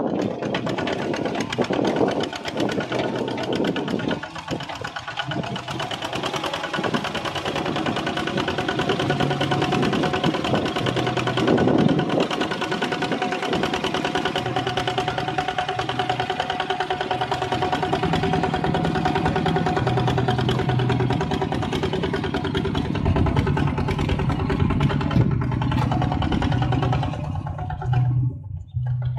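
Two-wheel walking tractor's ZT155 single-cylinder diesel engine running steadily under load as it pulls a disc plough through a flooded, muddy paddy.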